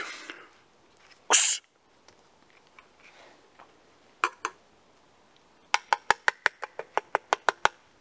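A short, sharp hissing burst about a second in. Two knocks follow a few seconds later, then near the end a fast, even run of about a dozen sharp clicking knocks, some six a second.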